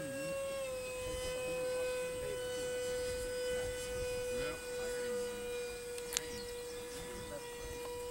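A radio-controlled model airplane's motor drones steadily in flight, its pitch dropping slightly about half a second in. A single sharp click comes about six seconds in.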